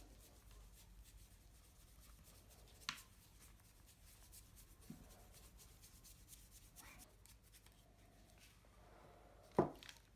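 Faint scratching of a wide flat brush rubbing graphite powder into a painted PVC barrel, with a light knock about three seconds in and a louder knock near the end.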